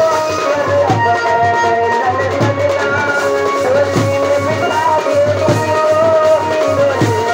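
Live Indian wedding band music: a steady drum beat under a wavering lead melody, amplified through horn loudspeakers.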